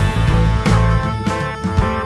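Background music: a song with strummed guitar and a steady beat.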